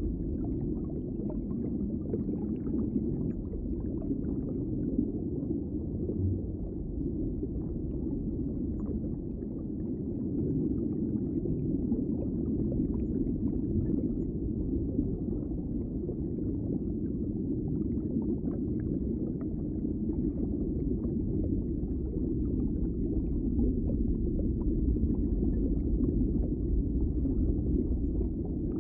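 Underwater ambience: a steady, muffled low rush of water with faint scattered crackles.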